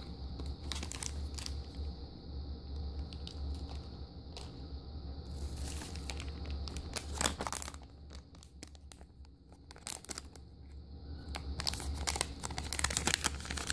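Foil blind-bag wrapper crinkling and tearing as it is handled and ripped open by hand, in several spells of crackly rustling with a quieter pause about two-thirds of the way through.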